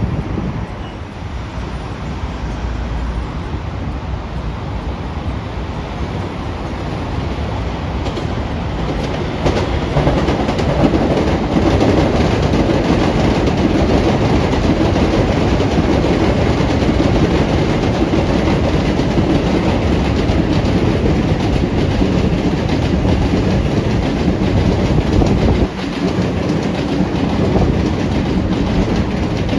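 A train running past on the rails, getting louder about ten seconds in and staying loud, with a brief dip near the end.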